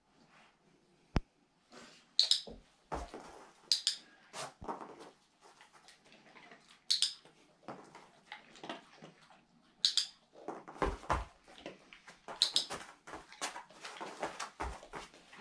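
A dog moving about on a mat and wooden floor and nosing at a food plate, with irregular sharp clicks and light clatters throughout.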